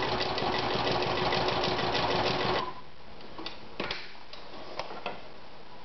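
Veritas 8016/22 electric sewing machine stitching thick shoe leather at a long stitch length: a motor hum with a quick, even ticking of the needle strokes, cutting off abruptly about two and a half seconds in. A few faint clicks follow.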